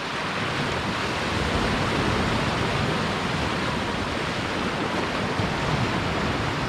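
Steady rushing noise of sea surf washing over shoreline rocks, swelling slightly and easing again.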